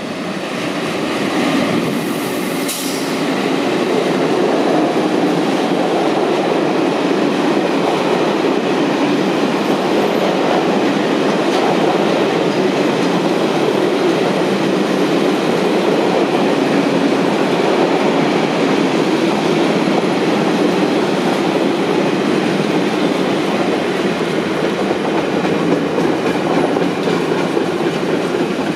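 Regional train running into the station alongside the platform: steady loud rumble of wheels on the rails, growing louder over the first few seconds. A brief high-pitched squeal comes about two seconds in.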